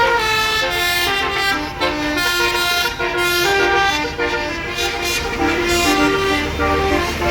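Bus basuri telolet horn playing a melody: a run of pitched horn notes stepping from one note to the next, over the low rumble of a bus engine.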